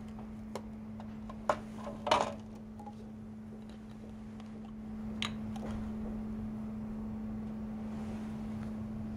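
A few sharp plastic clicks and taps from a micropipette being handled, the loudest a short cluster about two seconds in, over a steady low hum.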